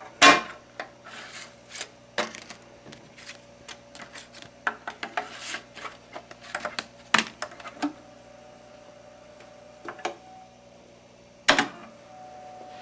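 Irregular sharp clicks and short clattering over a steady electrical hum, busiest in the first eight seconds, with a steady single tone starting near the end.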